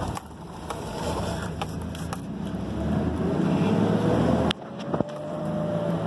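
Mazda B3000 pickup's 3.0-litre V6 pulling away from a stop heard from inside the cab, its revs climbing, then a sudden dip about four and a half seconds in as the manual gearbox is shifted up, after which the engine pulls on again.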